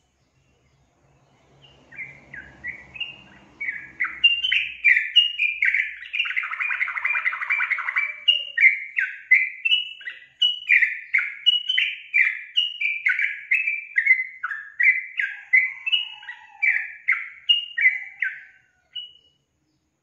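Yellow-vented bulbul (trucukan) singing a long, fast run of short warbling notes, about two a second. The song starts a couple of seconds in and stops just before the end.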